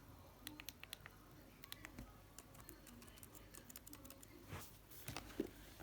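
Faint, irregular light clicks and taps, a few a second, from a laptop being handled.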